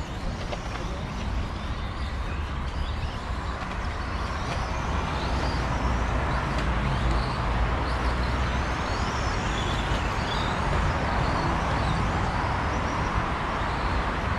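Electric RC race cars running on the track, their motors whining and sliding up and down in pitch as they accelerate and slow, over a steady low rumble and hiss that grows a little louder after the first few seconds.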